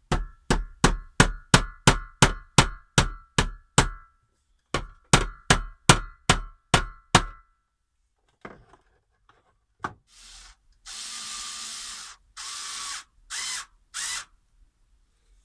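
Two runs of quick, ringing hammer blows, about four a second with a short pause between them: cable clips being nailed into the wooden panel to hold the charge controller's cables against vibration. A few short rasping bursts follow near the end.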